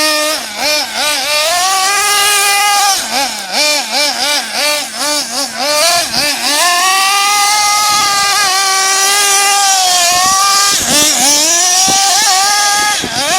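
The 3.0 cc nitro engine of a 1/8-scale GS Storm Evolution RC buggy revving with quick throttle blips, its pitch rising and falling several times a second. In the middle it holds a high, steady whine for a few seconds, then goes back to short blips near the end.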